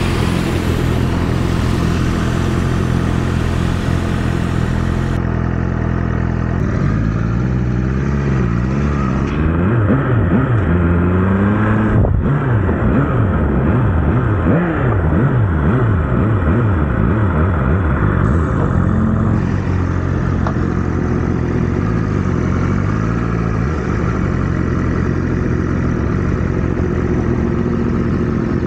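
Motorcycle engine running under way, its revs steady at first, then rising and falling over and over from about seven seconds in to near the end, as the rider works the throttle and gears.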